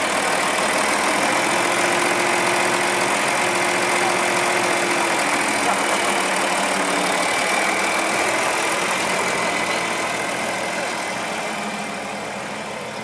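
John Deere 4520 tractor's turbocharged six-cylinder diesel engine running, steady at first, then fading over the last few seconds as the tractor drives away.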